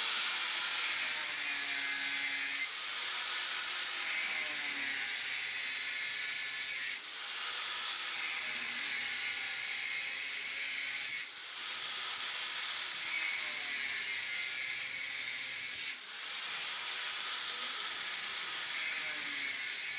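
Angle grinder cutting through a large PVC sewer pipe: a loud, steady, high hissing whine of the disc in the plastic, easing off briefly three times.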